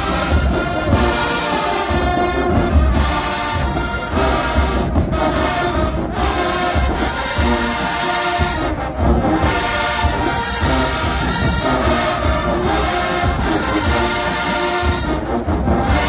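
Marching band playing, its brass section carrying the tune over steady low drum hits.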